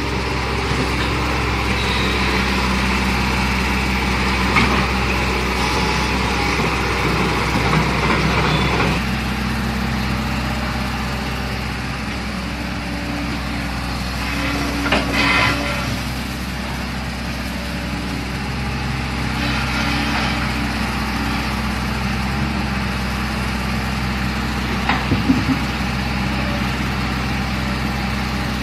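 Hitachi excavator's diesel engine running steadily, working harder for the first nine seconds before easing off abruptly. Brief louder scraping noises come about halfway through and near the end.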